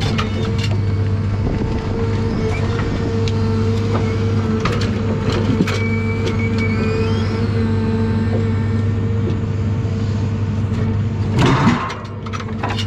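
John Deere 1010G forwarder's diesel engine and crane hydraulics running steadily under load while the grapple handles logs, with scattered knocks and clunks and a brief rising squeal about halfway through. Near the end a louder clatter of logs, after which the engine note drops.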